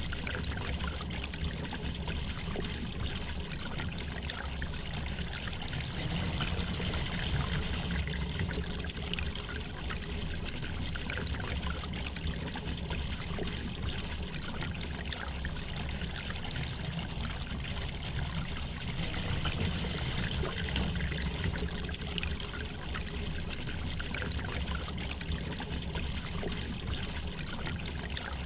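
River water flowing gently and steadily, a continuous rushing with fine trickling and splashing.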